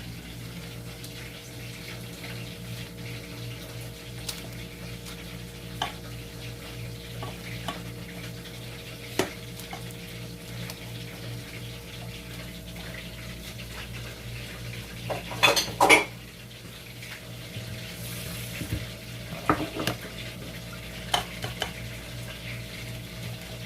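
Kitchen utensils and dishes knocking and clinking now and then, with a loud clatter about two-thirds of the way through, over a steady low appliance hum.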